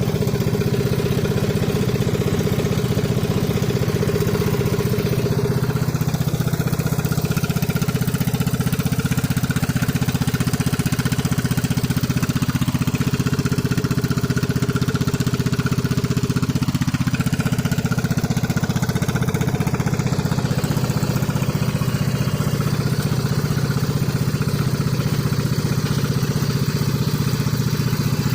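Engine running steadily at a constant speed throughout, with no rise or fall in pitch.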